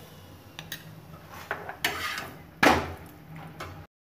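Steel spoon and spatula clinking and scraping against a tawa while a thepla flatbread is oiled and turned, with several sharp clinks and one loud clank about two-thirds of the way through. The sound cuts off suddenly near the end.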